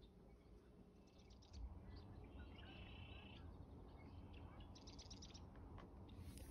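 Faint birdsong, short high chirps and a trilled call, over a low steady rumble.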